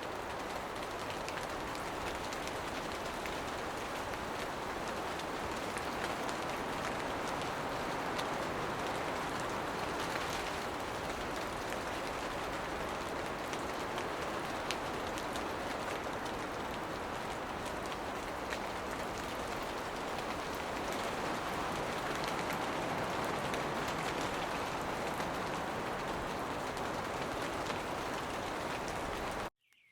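Steady rain shower falling on forest foliage, a dense even hiss with fine raindrop ticks through it; it cuts off suddenly just before the end.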